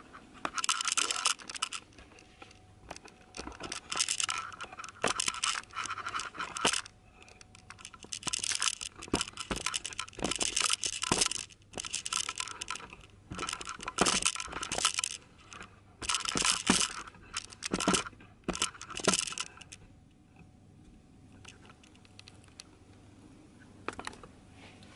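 Close handling noise from a handheld camera being moved about and set down: repeated bursts of scraping and rustling with clicks and knocks, stopping about twenty seconds in and leaving quiet room tone.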